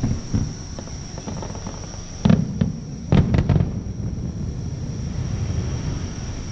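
Distant fireworks going off: a couple of bangs near the start, then a cluster of louder bangs around the middle, over a steady high insect trill.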